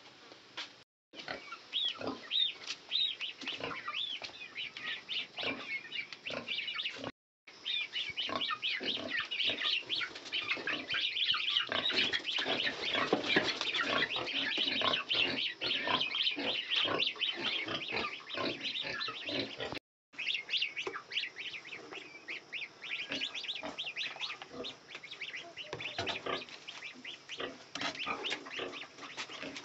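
Domestic goslings peeping, a dense stream of short high calls as they feed from a bowl of chopped greens. The sound drops out briefly three times.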